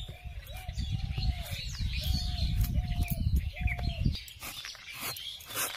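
Birds calling: a short arched call repeats about six times, with small birds chirping high above it. A low rumble under the calls stops about four seconds in, and a few sharp clicks follow near the end.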